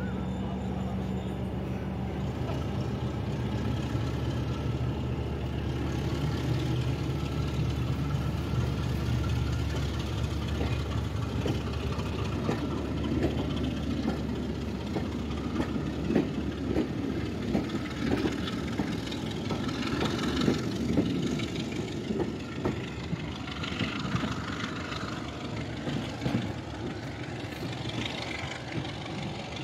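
Heritage diesel locomotive engines running as a train of coaches pulls out. For the first ten seconds or so the engine note is the main sound, then the coach wheels clatter over rail joints and pointwork in irregular clicks, thinning out near the end.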